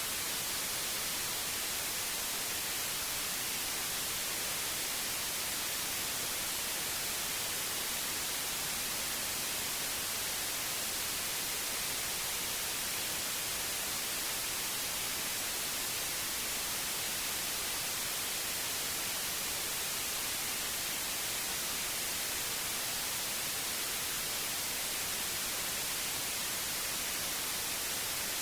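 Steady white noise: an even hiss, strongest in the highs, with no change in level.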